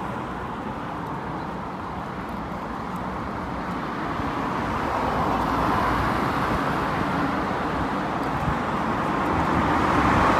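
Road traffic noise: a steady rush of vehicles and tyres that swells around the middle and grows louder again near the end.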